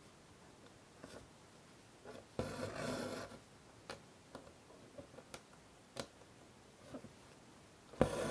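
Embroidery thread being drawn through fabric stretched in a wooden hoop, a soft rasping rub a little over two seconds in and again near the end, with a few small ticks between as the needle pierces the taut cloth.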